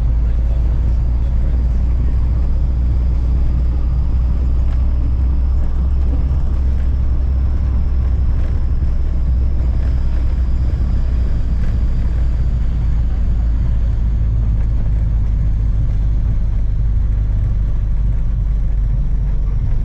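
Boat engine running steadily, a loud continuous low drone.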